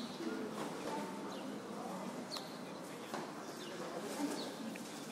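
Quiet open-air background: a low murmur of distant voices, with short, high, falling chirps every second or so.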